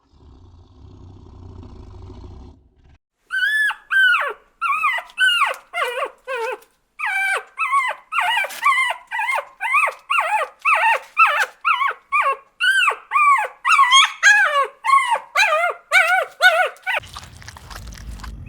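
An animal giving a long run of short, high yelping calls, each rising and then falling in pitch, about two a second. A low rumbling noise comes before the calls and returns near the end.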